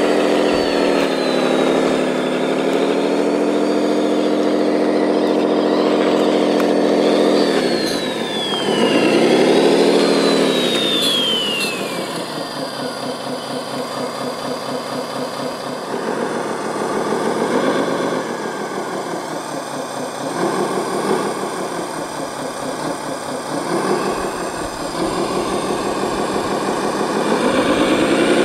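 Radio-controlled scale Komatsu WA600-6 wheel loader running: its engine sound holds steady at first, dips and swells again around ten seconds in, then settles to a quieter pulsing run with a few short swells and rises again near the end. A high whine glides up and down over the first half as the loader drives and works.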